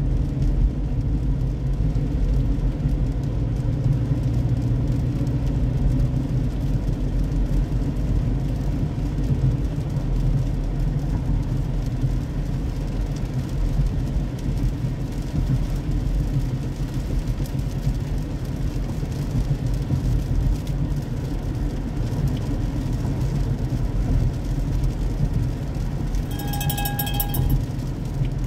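Steady low road rumble inside a car's cabin, driving on a rain-soaked road. Near the end a brief high tone sounds for about a second.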